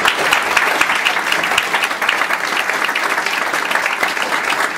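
A small audience applauding steadily, many hands clapping at once, to welcome a speaker to the stage.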